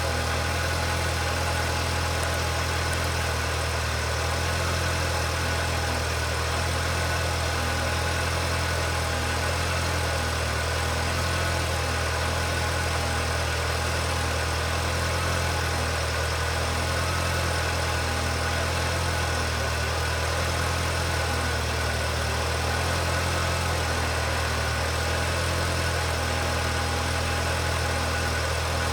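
Kawasaki Ridge side-by-side's engine idling with a steady, unchanging hum.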